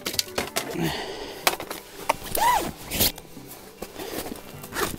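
Gear being handled at close range: jacket fabric rustling and a plastic bump board knocking and clattering as it is picked up, with scattered clicks and a brief rising-then-falling squeak about halfway through.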